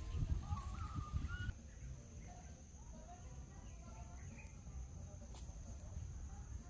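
Birds chirping outdoors, clearest in the first second and a half and fainter after that, over a low rumble and a thin steady high tone.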